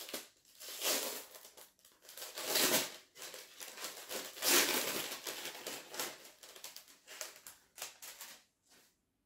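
Brown kraft-paper packet being opened and unfolded by hand: the paper crinkles and rustles in a string of irregular bursts, loudest in the first half, stopping shortly before the end.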